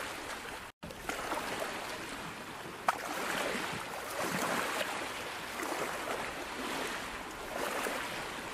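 Ocean surf washing and splashing over coastal rock shelves: a steady hiss that swells and eases, beginning just under a second in, with one sharp click about three seconds in.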